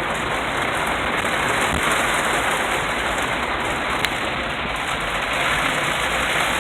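Heavy rain falling steadily on a car, heard from inside the cabin, with a single short click about four seconds in.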